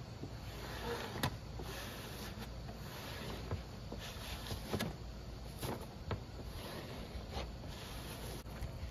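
A hand and a pad rubbing and pressing a thin, flexible sheet covering down onto glued plywood. It makes intermittent scraping and rustling, with several sharp clicks and pops as the sheet flexes, over a low steady background rumble.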